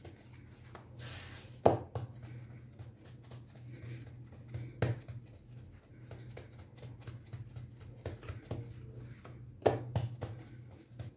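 Hands patting and pressing rounds of batbout dough flat on a floured stone counter: soft rustling pats with a few sharp taps, over a steady low hum.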